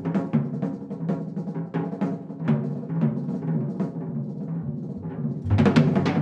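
Live jazz: a drum kit played with mallets in a fast rolling pattern on the toms, over double bass and piano. About five and a half seconds in the band swells louder, with deep bass and a cymbal crash.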